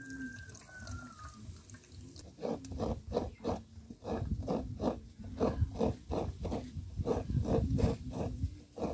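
Coconut flesh being scraped and grated from the half shell by hand over a metal pot: short rasping strokes at about two a second, starting about two seconds in.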